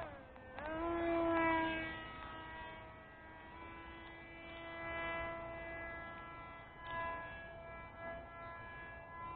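RC model airplane motor and propeller whining in flight, noisy, its propeller clipped. The pitch dips sharply and comes back up about half a second in, then holds fairly steady with small throttle wobbles.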